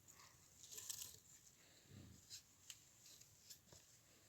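Near silence with faint rustling, a soft thump about two seconds in and a few light clicks: firewood being handled while the bonfire is stacked.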